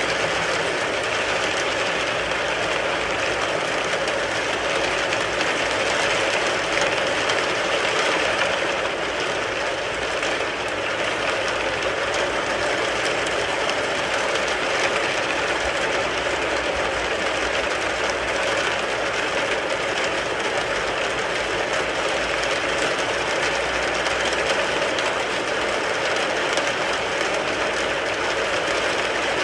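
Rain falling steadily on a car, heard from inside the car: a dense, even patter of drops on the roof and glass.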